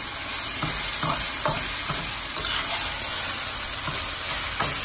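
Stir-fry of beef, vegetables and ramen noodles sizzling in a hot wok, with a metal spatula scraping and knocking against the pan several times as the noodles are stirred and broken up.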